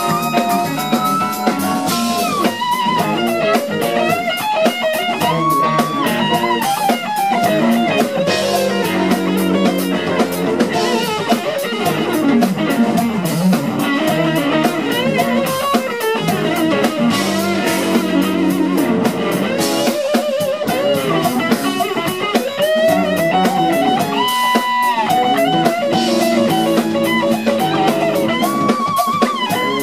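Live funk instrumental: an electric guitar plays a lead solo full of string bends and wavering held notes over a drum kit.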